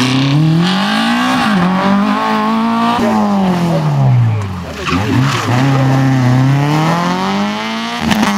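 Rally car engines revving hard as two cars pass in turn, a Renault Clio and then a Peugeot 306. The pitch climbs and falls repeatedly with gear changes and lifts off the throttle, and switches abruptly to the second car about three seconds in.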